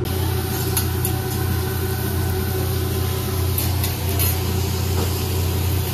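Steady low hum of restaurant ventilation, such as the exhaust hood over a hibachi grill, with a few faint clinks of tableware.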